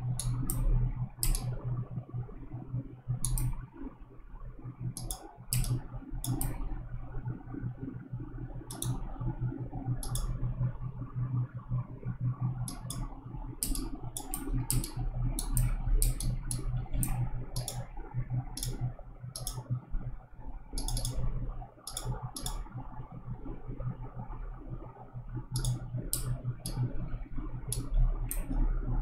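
Computer mouse clicking at an irregular pace, sometimes two clicks in quick succession, over a steady low hum.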